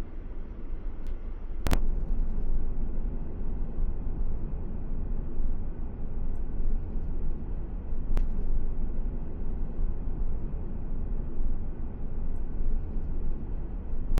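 Car driving along a road: a steady low rumble of tyres and road noise, with a sharp click about two seconds in and another about eight seconds in.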